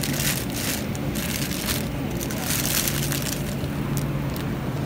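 Thin plastic produce bags crinkling in irregular bursts as a bag of bell peppers is picked up and handled, over a steady low hum.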